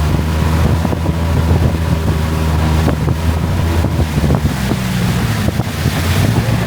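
Longtail boat's engine running steadily as the boat moves along the canal, with wind buffeting the microphone.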